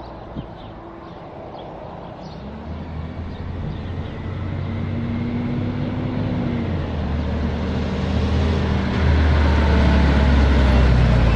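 Hino garbage truck's diesel engine approaching along the road, growing steadily louder as it nears, with a low engine hum that is loudest in the last couple of seconds.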